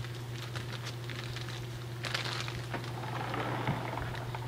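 English Mastiff's paws and claws clicking and pattering on stone patio pavers as it walks about and settles, over a steady low hum. A soft rustling stretch comes about halfway through.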